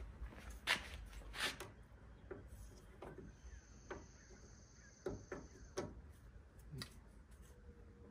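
Plastic hood trim piece being pressed on by hand, its compression tabs snapping into the hood: irregular light clicks and taps, the loudest in the first two seconds.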